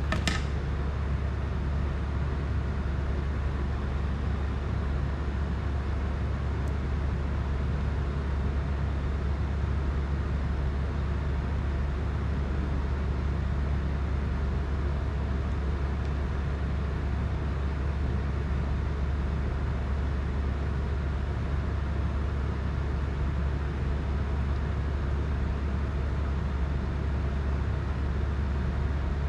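Steady low droning rumble with a hiss over it, unchanging throughout, and one short sharp click right at the start.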